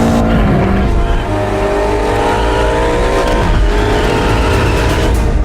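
BMW F90 M5's S63TU twin-turbo V8 through an aftermarket exhaust, accelerating hard. It rises in pitch through the gears, with the pitch dropping at upshifts about half a second in and again about three and a half seconds in.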